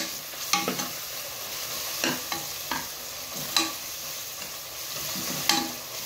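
Sliced onions sizzling in hot oil in a pressure cooker pan, stirred with a spatula. The spatula knocks and scrapes against the pot at irregular moments, about eight or nine times, over a steady frying hiss.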